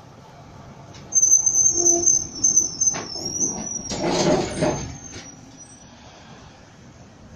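Tram wheels squealing against the rails as a tram passes: a loud, high-pitched squeal that starts suddenly about a second in, wavers between a couple of close pitches and fades out near six seconds. A louder rush of rumbling passing noise comes as the tram goes by close about four seconds in.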